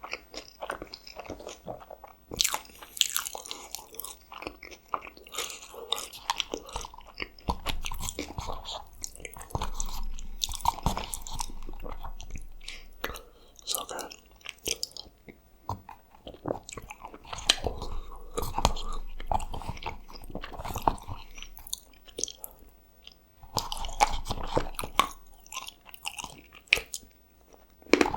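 Close-miked eating: repeated bites and chewing with crunches, a fast-food meal of cheeseburger and fries being eaten mouthful after mouthful.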